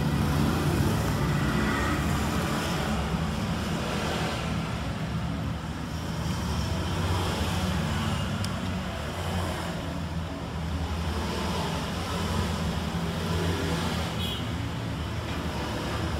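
Steady low background rumble with a faint click about halfway through.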